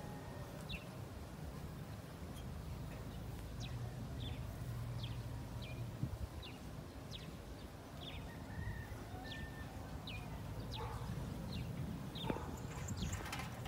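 A small bird calling with short, high chirps about once a second, over a steady low outdoor rumble; a few louder rustles near the end.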